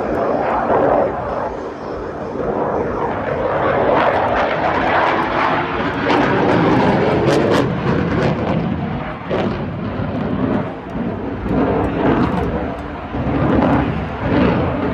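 HAL Tejas fighter's jet engine heard from the ground as the aircraft flies display manoeuvres: a continuous rushing jet roar that swells and fades in loudness.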